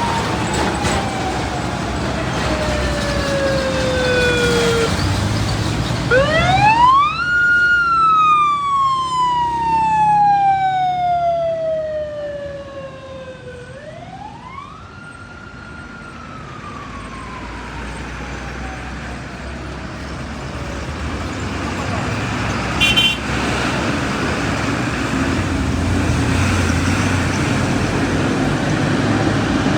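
A siren wailing over road traffic noise: its pitch sweeps up quickly and falls slowly, about three times, before fading out around twenty seconds in.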